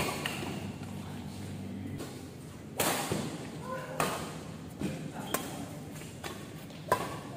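Badminton rackets striking the shuttlecock in a doubles rally: about six sharp cracks at uneven intervals of roughly a second, echoing in a large sports hall.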